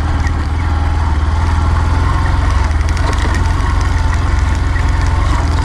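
Suzuki motorcycle engine running at low speed while the bike rides over a bumpy dirt track, with a steady low rumble and scattered small knocks and rattles.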